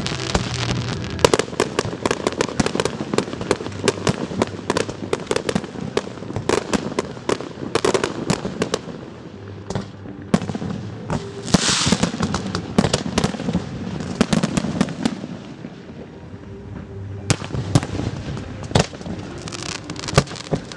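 Fireworks show: rapid volleys of bangs and crackling, thinning out briefly about three-quarters of the way through before picking up again.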